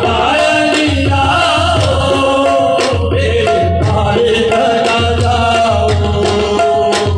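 Live qawwali: harmoniums play the melody over a tabla beat, with a male lead voice singing. The low drum strokes come in clusters about every two seconds.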